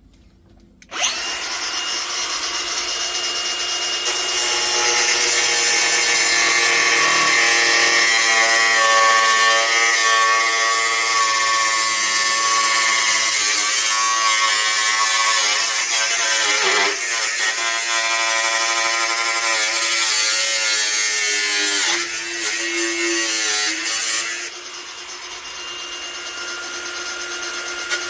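Handheld power tool cutting an opening in the vehicle's body panel. It starts about a second in and runs steadily, its pitch sagging and recovering as it bites, then eases off near the end.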